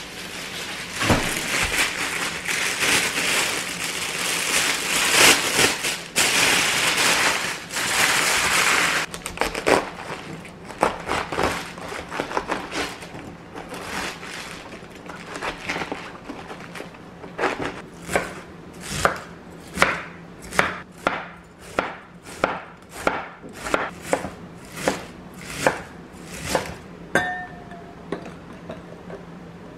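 Knife cutting and chopping a large head of cabbage: a continuous crackling noise over the first nine seconds, then a long run of sharp knife strokes, about one and a half a second. A short clink comes near the end.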